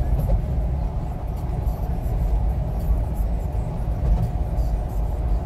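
Road noise inside a moving car's cabin: a steady low rumble from the tyres and engine.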